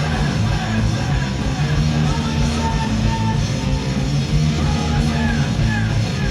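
Loud, dense live music with a held low drone and distorted, guitar-like tones, running on without a break.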